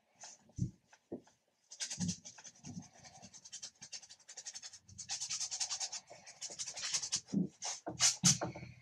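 Bristle brush scrubbing acrylic paint onto a stretched canvas in quick back-and-forth strokes, with a few harder, louder strokes near the end.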